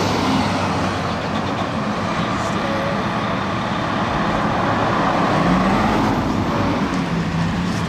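A 2017 Pierce Enforcer fire engine's Detroit Diesel engine idling steadily.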